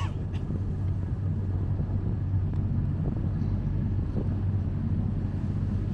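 Canal tour boat's engine running with a steady low hum as the boat cruises along.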